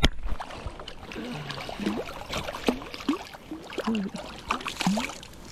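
Hooked sea trout thrashing in shallow water as it is landed: a run of short, irregular splashes and gurgles.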